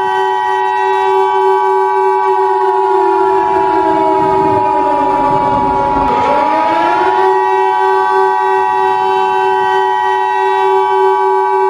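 Emergency Alert System attention signal, a steady two-tone beep near 1 kHz, sounding over a siren with a steady wail that sags in pitch about halfway through and climbs back.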